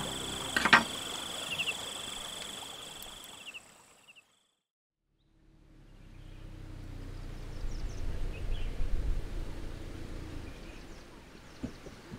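Outdoor ambience: fades to silence about four seconds in, then returns as a low rumble that swells and eases off, with faint high chirps of insects or birds.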